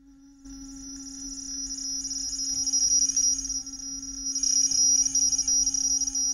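Homemade Arduino synth built on the Mozzi library, played through its own amplifier and speaker as its knobs are turned: a steady low drone under a shrill high whine with warbling chirps. It cuts in about half a second in and grows louder.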